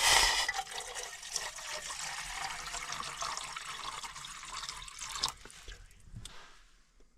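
Water being poured into a pot: a steady pour that is loudest at the start, fades, and stops about six seconds in.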